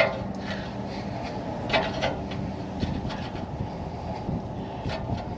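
Sharp metallic clicks and knocks of a hand wrench working an oxygen sensor on a truck's exhaust, a few separate clicks with rubbing and rustling between them, over a steady low hum.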